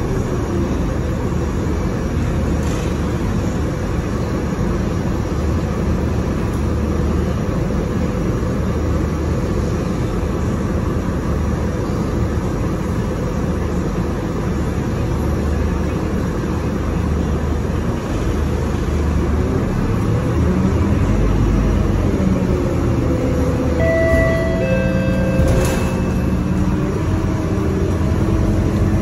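City feeder bus heard from inside the cabin while driving: a steady low rumble of engine and road. Near the end, a few brief high tones ring out over the rumble.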